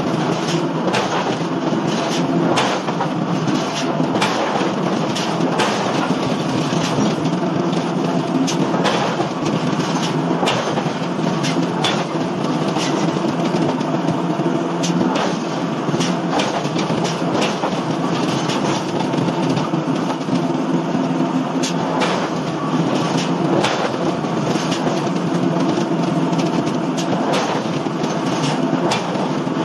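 Heavy forging machinery running steadily with a low hum, along with frequent irregular metallic clicks and clanks.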